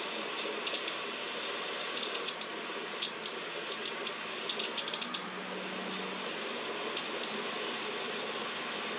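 Steady hiss with a cluster of small, sharp mechanical clicks between about two and five seconds in, and two more a little later.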